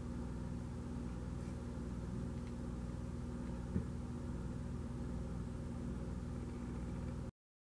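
A steady low hum with one faint click about four seconds in, cutting off abruptly near the end.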